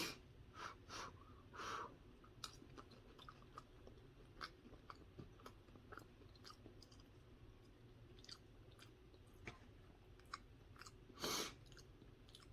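A person chewing a mouthful of casserole of pulled pork, baked beans, cheese, onion straws and biscuit. It comes through faintly as soft, irregular mouth clicks and smacks, with a short louder noise about eleven seconds in.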